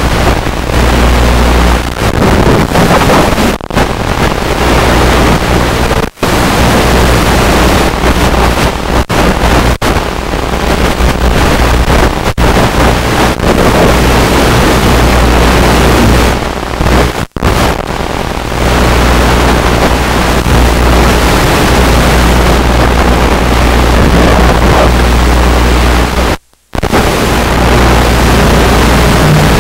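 Loud, steady rushing noise with a low hum from the onboard FPV camera of a UMX Radian RC glider in powered flight: airflow and the electric motor and propeller. It cuts out briefly several times, once for about half a second near the end.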